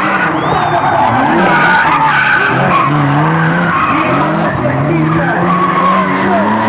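Two drift cars sliding sideways in tandem, engines revving up and down repeatedly as the throttle is worked, with tyres screeching.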